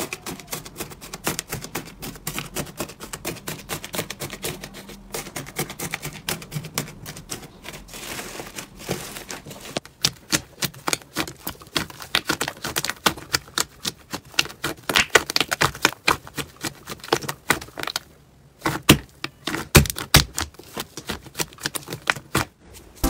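Crunchy slime being squeezed and pressed by hand, making a dense run of small crackles and clicks, with louder, sharper pops in the second half.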